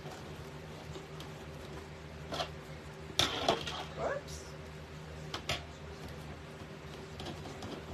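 Plastic deco mesh rustling and crinkling as it is gathered and scrunched by hand, in a few short bursts, the biggest a little past the middle.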